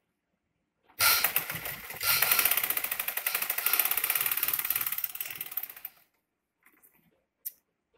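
Sewing machine stitching fabric: it starts about a second in and runs fast with an even, rapid clatter for about five seconds, then stops. A few light clicks follow.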